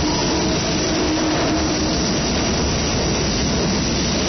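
Keikyu electric train pulling out past the platform. Its wheels and motors make a steady noise with a faint motor whine.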